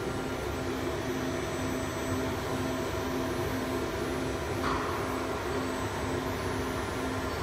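Steady whirring hum of a running CNC router and its control cabinet's cooling fans, with a low tone pulsing about twice a second. A short burst of hiss comes about four and a half seconds in.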